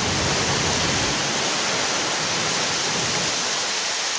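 Steady rushing hiss, with a low rumble that fades out about halfway through.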